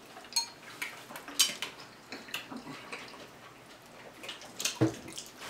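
Close-up eating sounds: a fork clinking and scraping against a glass bowl, with scattered sharp mouth clicks and smacks from chewing barbecue ribs. The loudest clicks come a little before the end.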